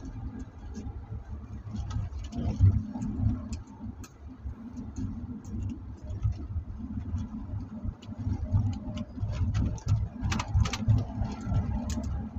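Road noise heard inside a moving car's cabin: a steady low rumble of engine and tyres, with scattered light clicks and rattles and a brief cluster of them about ten seconds in.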